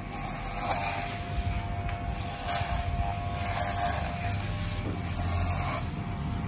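Electric hair clippers fitted with a number 1.5 guard comb buzzing steadily while cutting up the back of the neck, with a few short scraping passes as the blade moves through the hair.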